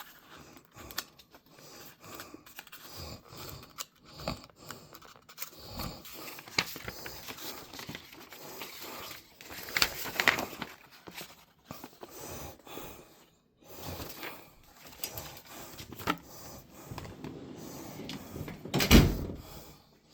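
Scattered handling noises: light clicks, knocks and rustles of objects being moved about, with one louder thump near the end.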